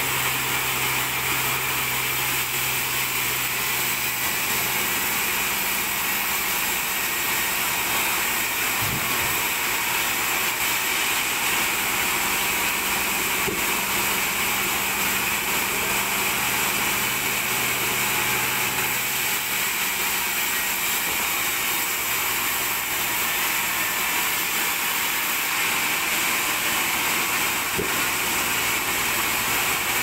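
Large vertical band sawmill running and cutting wadang timber as the carriage feeds a plank through the blade: a steady, even noise of the blade in the wood. A low motor hum underneath fades out about halfway.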